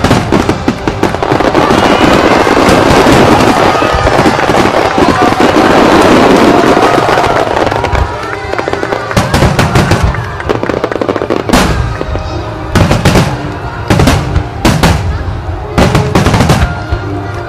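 A mass of aerial fireworks shells bursting together in a dense, continuous crackle. From about halfway this gives way to a string of separate sharp bangs, roughly one or two a second, with music playing underneath.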